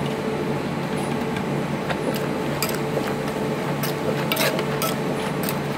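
Wooden pestle and metal spoon tossing and lightly pounding shredded bamboo shoots in a clay mortar: irregular light knocks and clinks with wet squishing, more of them in the second half, over a steady low hum.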